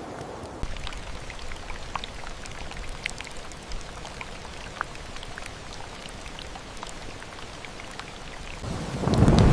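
Steady rain with scattered single drops ticking. Near the end a low rumble of thunder swells up and becomes the loudest sound.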